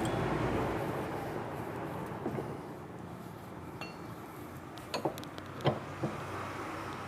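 A few sharp metallic clinks and taps of tools and parts being worked on a washing machine's pulley assembly, the loudest about five and a half seconds in, over a steady low hum.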